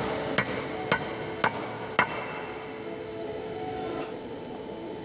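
Hammer blows on a steel drift set in a single-cylinder Dongfeng diesel's cylinder head: about five sharp metallic strikes roughly half a second apart, stopping about two seconds in.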